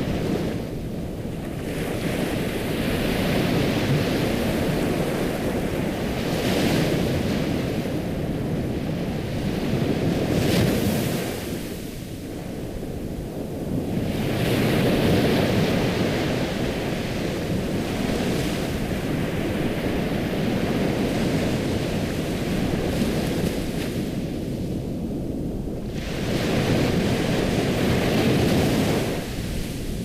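Ocean surf ambience: waves washing in and out in long surges, with a few brief lulls between swells.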